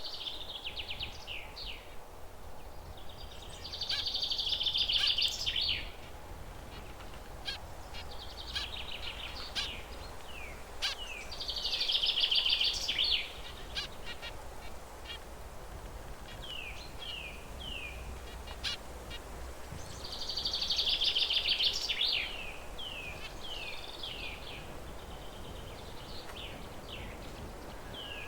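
Zebra finches calling: three loud buzzy bursts, each about a second and a half to two seconds long and spaced roughly eight seconds apart, with short falling chirps in between.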